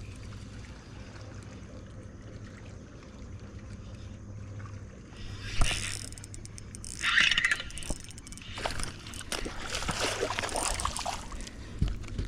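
A steady low hum on a fishing boat. From about halfway in come irregular bursts of splashing and knocking as a small bass is brought to the boat.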